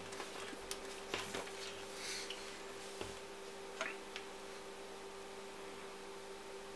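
Light clicks and taps of multimeter test probes and the graphics card being handled on the bench, a handful in the first four seconds, over a steady electrical hum.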